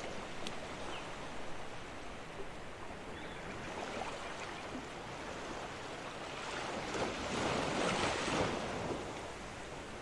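Quiet scraping and handling noise from a metal spoon scooping tomato sauce out of a frying pan and pressing it into a zucchini ring, a little louder for a couple of seconds near the end.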